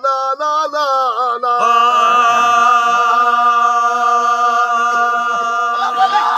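Male voice singing a Sindhi Sufi kafi unaccompanied, in the raag style of the Thar faqeers: short bending phrases, then from about a second and a half in one long held note.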